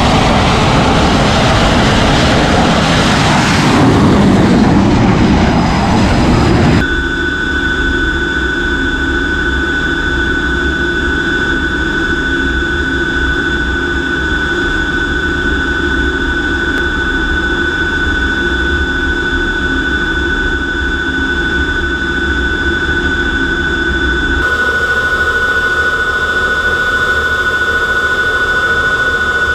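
Rafale fighter's jet engines at full power on an aircraft carrier's catapult, a loud rushing roar for about seven seconds. It then cuts to the steady noise inside a jet fighter's cockpit in flight: a low engine rumble with two high steady whine tones, changing slightly near the end.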